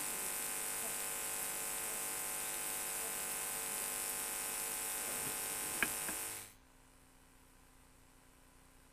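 Steady electrical hiss with a buzzing hum on the podium microphone's line; it cuts off suddenly about six and a half seconds in.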